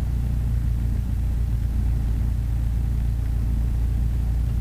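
Mooney's single piston engine running at low power while taxiing after landing, a steady low drone heard inside the cockpit.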